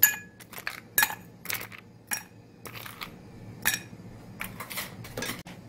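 Ice cubes dropped one after another into a tall drinking glass, each landing with a sharp clink, the hardest strikes leaving a brief glassy ring. Later cubes knock against the ice already inside, in a quicker run of softer clinks near the end.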